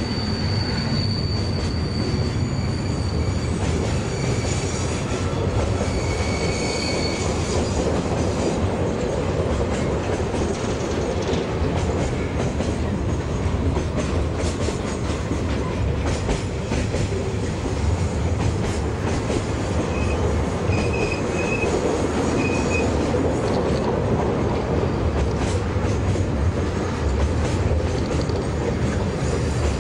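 Freight wagons of a long container train rolling past on a curve: a steady rumble of steel wheels on rail with repeated clicks over rail joints. Brief high wheel squeals sound near the start and again about two-thirds of the way through.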